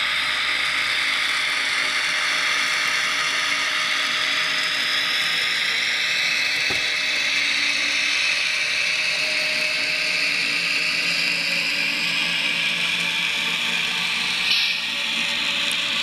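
Roco N-scale BR101 model electric locomotive running with its ESU sound decoder: the decoder's electric-locomotive traction sound from the tiny onboard speaker, mixed with the whirr of the model's motor and gears on the track. It is steady and high-pitched, with a whine that glides slowly, and a short knock near the end.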